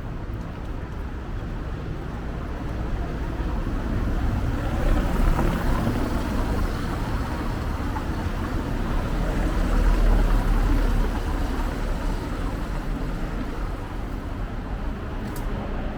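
City street ambience with steady traffic noise. A low rumble swells to its loudest about ten seconds in, as a vehicle passes.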